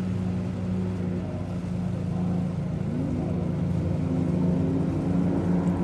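Outboard boat motor running steadily, a constant low drone.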